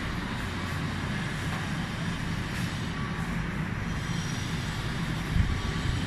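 Steady low rumble with a faint hum, and a single thump about five and a half seconds in.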